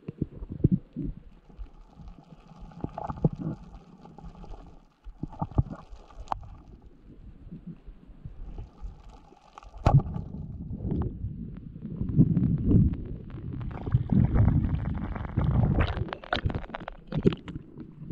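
Muffled underwater rumbling with scattered knocks and clicks, picked up by an action camera in its waterproof housing while a freediver swims over the reef with a pole spear. It grows louder and busier from about halfway through.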